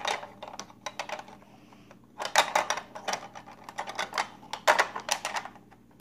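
Small hard plastic pieces of a crayon carver kit clicking and clattering as they are handled, in irregular runs of quick clicks. There is a pause in the clicking near the middle.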